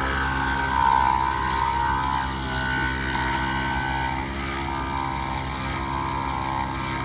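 Small 12-volt portable air compressor running steadily, powered from the car battery, to pump air into a punctured tyre.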